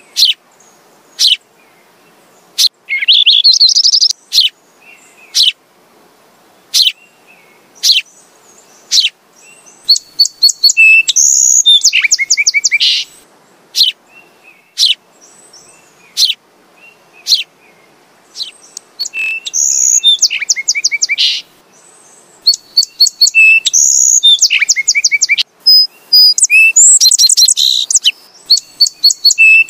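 House sparrow chirping: single sharp chirps about a second apart, then from about a third of the way in, several bouts of quick repeated chirps lasting two to three seconds each.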